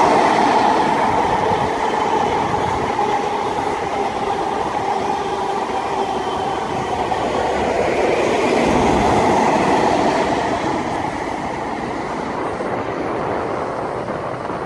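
Virgin Trains East Coast express passenger train passing on a nearby track: a steady rumble and clatter of wheels on rail. The sound swells again about two-thirds of the way through with a deeper rumble, then fades as the train draws away.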